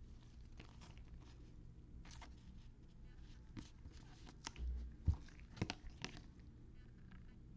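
Trading cards and their packaging being handled: faint rustling and crinkling, with a low thump about four and a half seconds in and a few sharp clicks soon after.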